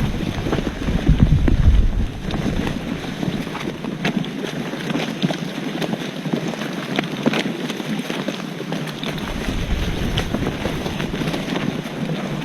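Wind buffeting the microphone outdoors, a low rumbling noise that eases for several seconds in the middle, with scattered faint clicks and rustles over it.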